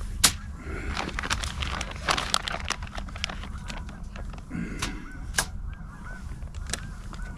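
Geese honking in a run of short repeated calls, over scattered clicks and rustling.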